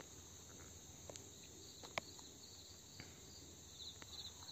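Faint insect chirping in short, repeated high trills, with a few soft clicks.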